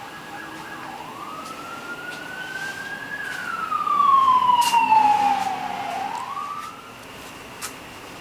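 Emergency vehicle siren wailing: one slow rise in pitch, then a longer fall, loudest about four to five seconds in, with a short rise again before it fades out about seven seconds in.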